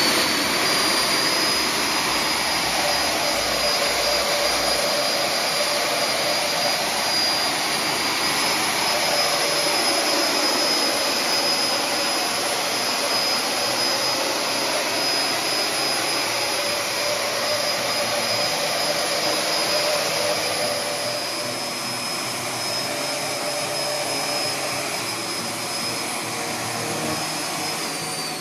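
Electric ducted fan of a 3D-printed RC Harrier model running at limited thrust (55%): a steady high whine over rushing air. It spools down near the end, the whine dropping in pitch.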